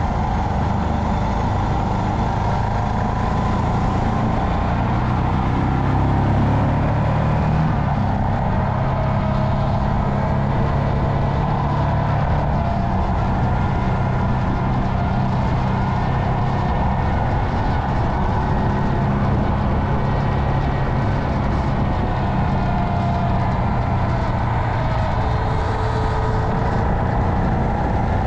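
Royal Enfield Himalayan's 411 cc single-cylinder four-stroke engine running steadily while riding at a slow, even pace, with a constant rush of wind and road noise.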